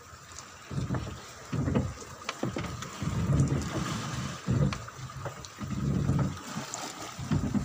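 Waves slapping against the hull of a small fishing boat pitching in rough sea, coming in irregular low surges about once a second, with a few sharp ticks and a faint steady whine underneath.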